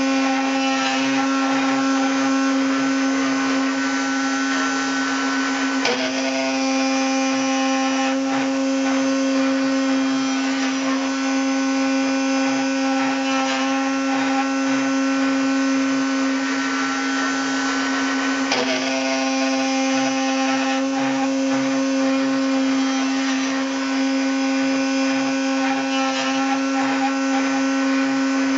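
Homemade CNC router's spindle driving an end mill through a 6061 aluminum billet: a steady whine over a hissing cutting noise, with two short blips, about six seconds in and again about two-thirds of the way through.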